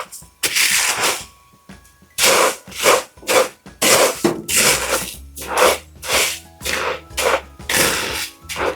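Rice Krispies cereal coated in melted chocolate being stirred and turned over in a bowl: repeated scraping, crunchy swishes, about one or two strokes a second.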